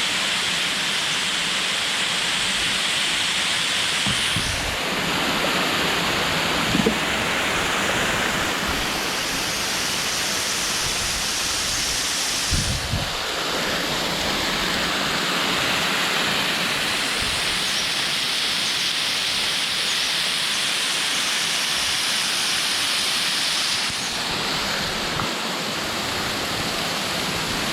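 Waterfall: falling water making a steady, even rushing noise whose tone shifts a few times, with a couple of brief dull knocks.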